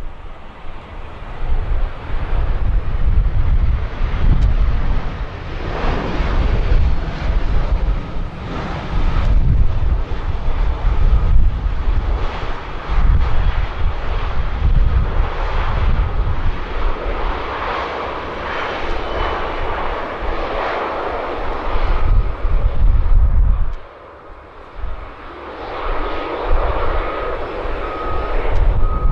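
Jet airliner's engines passing on landing approach, with gusty wind buffeting the microphone. A faint, evenly spaced beeping comes in near the end.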